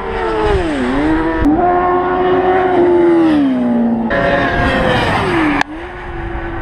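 Racing sport bike engines at high revs passing close by, the pitch falling as each bike goes past, in several short passes joined by sudden cuts. Wind rumbles on the microphone underneath.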